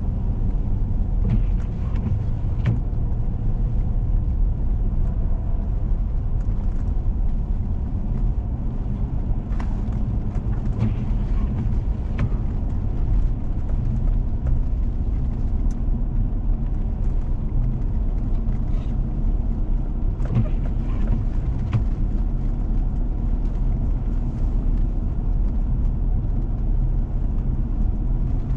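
Four-wheel-drive vehicle driving on a snow-covered road: a steady low rumble of engine and tyres, with scattered light clicks and knocks every few seconds.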